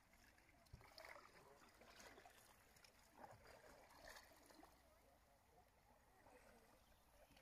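Near silence: a stand-up paddleboard's paddle dipping softly into canal water, a few faint strokes about a second apart.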